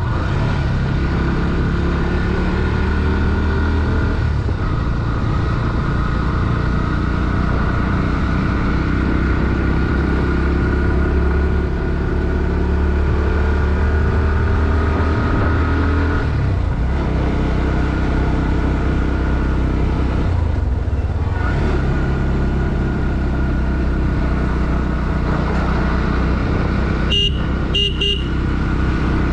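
Bajaj Pulsar NS160's single-cylinder four-stroke engine pulling under load, its pitch rising as it revs up through the gears, with two brief dips at gear changes past the middle. Two short horn beeps near the end.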